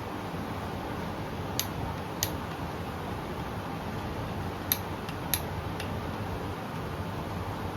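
Click-type torque wrench clicking as rod-cap bolts reach their set torque: two pairs of sharp metallic clicks about half a second apart, the second pair louder, over a steady background hum.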